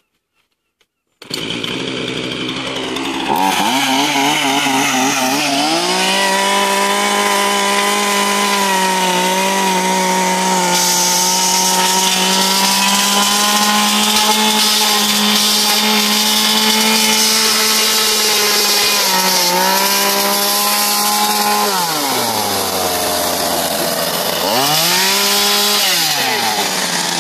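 Chainsaw started up and run at high revs, held steady for a long stretch, then let down low and revved up again before falling off near the end.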